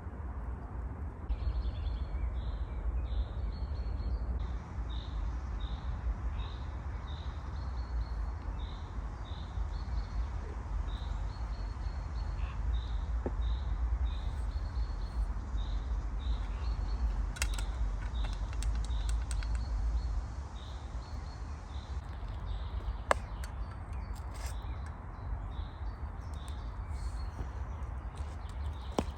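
A songbird repeating a short high note about one to two times a second, over a steady low rumble, with a few sharp clicks in the middle.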